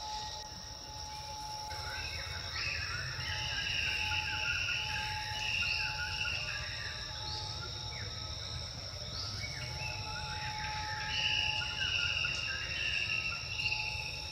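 Outdoor insects buzzing steadily in high, unbroken tones, with a chirping call that repeats about every two seconds, over a low rumble.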